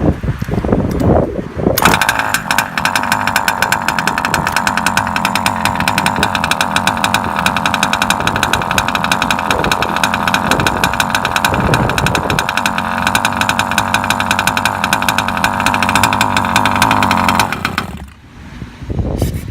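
Small two-stroke petrol engine of a 1/5-scale King Motor RC truck running steadily with a rapid, even buzz, its high-speed needle turned in half a turn. It comes in abruptly about two seconds in after some knocking and handling noises, and cuts out a couple of seconds before the end.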